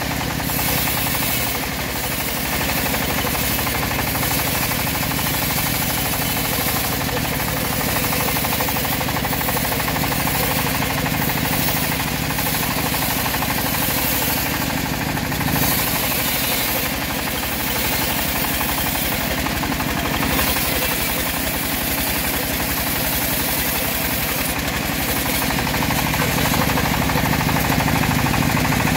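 Homemade band sawmill running steadily, its blade ripping lengthwise through the butt of an old teak log; it grows a little louder near the end.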